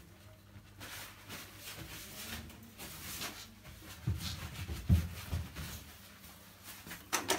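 Paper towel rustling and rubbing across a ceramic washbasin as it is wiped down, with a few dull bumps about four and five seconds in.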